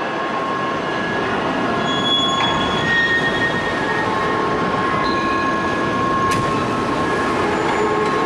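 Large forging press working a hot billet: steady loud machinery noise with held whining tones and short higher squeals, and one sharp knock about six seconds in.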